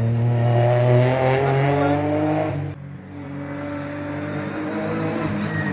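Rally car engine under hard acceleration, its pitch climbing steadily, then cut off abruptly about halfway through. A quieter engine follows, slowly rising in pitch.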